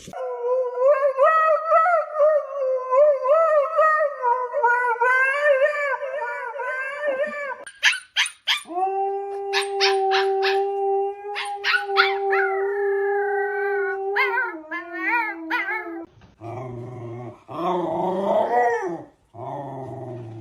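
A dog howling in long, wavering notes. About eight seconds in come a few sharp clicks, then a long steady held note. The last few seconds hold rougher, noisier dog sounds.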